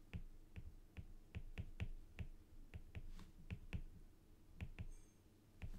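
Faint, irregular clicks and taps of a stylus on a tablet as handwriting is written, a few clicks a second.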